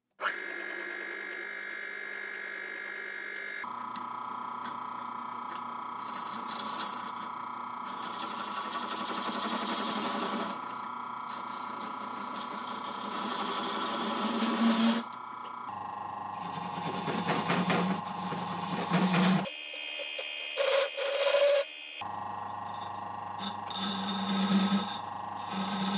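Drill press motor running with a steady hum while a plywood pulley spinning in its chuck is turned by hand: a chisel and then a small pointed tool scrape against the turning wood in several stretches of rasping noise. The pitch of the hum jumps abruptly a few times.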